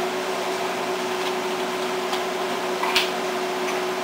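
Steady mechanical hum of a running kitchen fan or motor, with a few light clicks as a plastic spice jar is opened, the sharpest about three seconds in.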